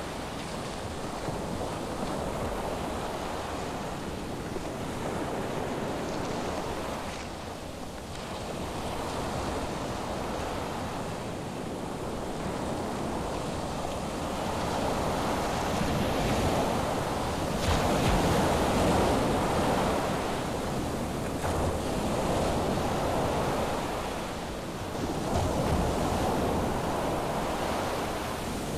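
Ocean surf breaking on a sandy beach: a continuous wash of waves that swells and ebbs, growing louder about halfway through and surging again near the end.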